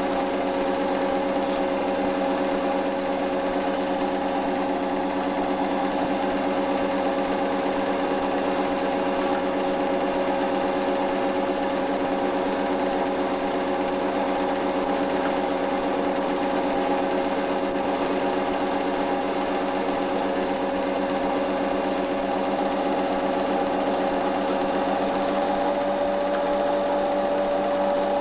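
8mm cine projector running: a steady mechanical whir with a rapid, even clatter from the film-advance mechanism.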